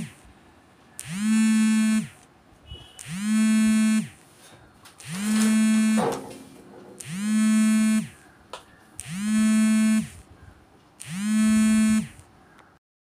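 Small electric motor of a tailor's electric fabric cutter running in short bursts as cloth is cut. Six runs of about a second each come roughly every two seconds, each spinning up to a steady buzzing pitch and winding down.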